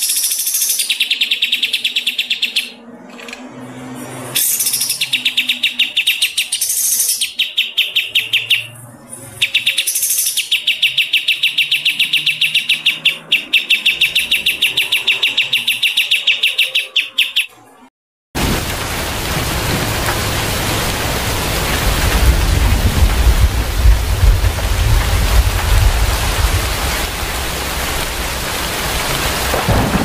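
Songbird song in long bursts of very fast, rapidly repeated trilled notes, broken by short pauses. About eighteen seconds in it cuts off suddenly and is replaced by steady heavy rain with a low thunder-like rumble.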